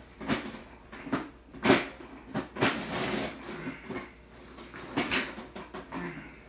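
Handling noise from a life-size animated Halloween prop being moved and set up: a string of about half a dozen knocks and clunks with rustling between them, the loudest knock a little under two seconds in.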